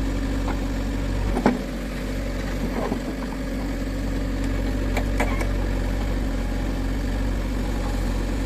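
Heavy diesel engine running steadily, with a sharp knock about a second and a half in and two more close together around five seconds in.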